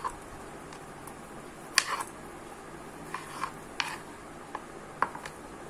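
Kitchen knife cutting tomatoes on a cutting board: irregular sharp taps as the blade goes through and strikes the board, about eight of them, over a faint steady hiss.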